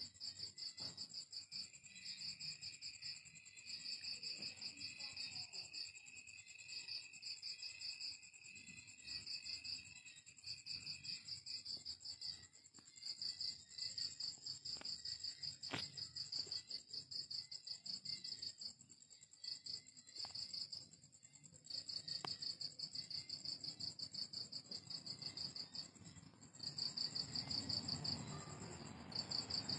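Crickets chirping in pulsed trills that come in bursts of one to two seconds with short gaps, over a steady high insect whine. A fainter, lower steady trill runs through the first ten seconds or so, and a low rumble comes in near the end.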